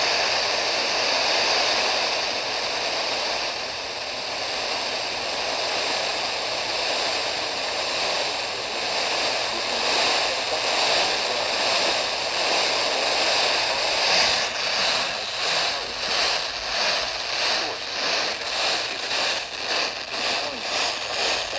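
Radio static: steady hiss from a weather-radio receiver with no programme on the channel. About two-thirds of the way in, the hiss begins to flutter evenly, about twice a second.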